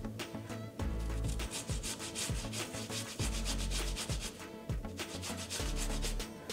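Zucchini being grated by hand on a kitchen grater: a steady run of quick, rough rasping strokes, with the zucchini worn down to a short stub.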